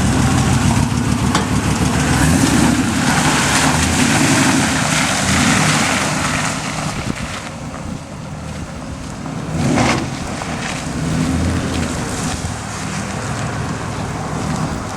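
Dodge Ram 5.7 Hemi V8 running through shorty headers and true dual exhausts with Dynomax Ultra Flow mufflers and no catalytic converters, carrying the ticking known as the Hemi tick. The engine is louder for the first several seconds, eases off about eight seconds in, and swells briefly a couple of seconds later.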